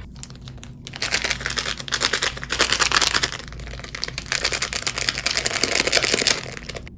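Plastic cup-noodle sauce sachet being torn open and handled: a dense, loud crinkling crackle that starts about a second in and stops just before the end.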